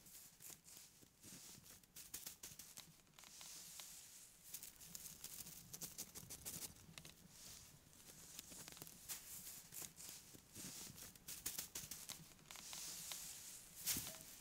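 Dry grass thatch being handled and bound onto a bamboo pole with cord, making faint, irregular rustles and crackles, with one sharper crack near the end.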